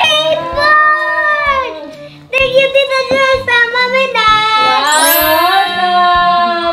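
Background music: a song with a high, held-note vocal melody over a steady beat, with a short break about two seconds in.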